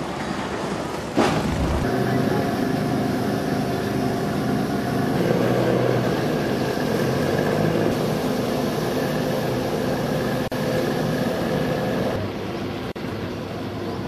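An engine running steadily with an even hum, heard as background sound. Its tone changes abruptly about twelve seconds in, and there is a single sharp knock about a second in.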